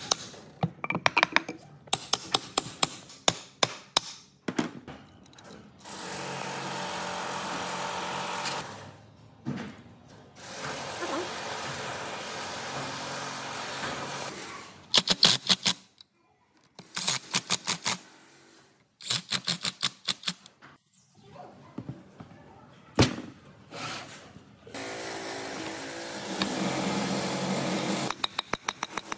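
Workshop tool sounds: repeated runs of rapid sharp knocks or taps, broken by two stretches of a power tool running steadily, and a motor running near the end.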